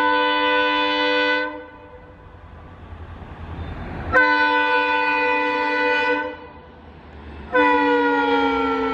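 Indian Railways locomotive horns sounding three long multi-tone blasts, with the low rumble of an approaching train between them. In the last blast the pitch falls steadily as the locomotive passes.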